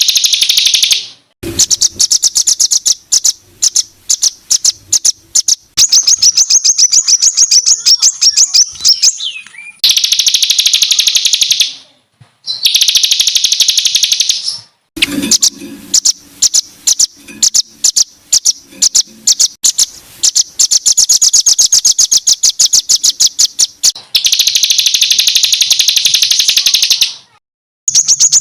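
Songbird song of harsh, high-pitched 'tembakan kasar' notes: loud rapid-fire repeated notes and fast trills, in bursts that break off abruptly with short silences between them, about four times.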